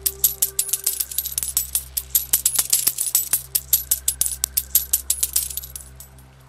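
Shower of coins clinking: many quick metallic clinks in close succession, thinning out and stopping near the end, over soft background music with steady low sustained tones.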